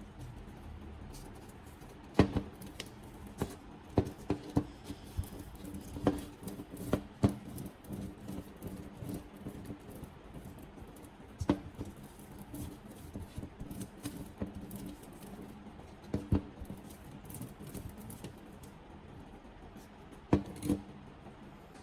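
Irregular clicks and light knocks of small hard parts being handled, coming in loose clusters, over a faint steady hum.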